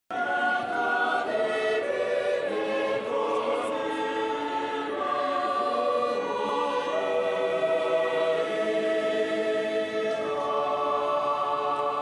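A choir singing a sacred chant in long held notes that change pitch every second or so.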